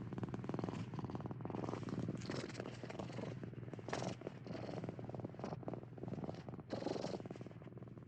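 Domestic cat purring steadily, the purr swelling and easing with each breath.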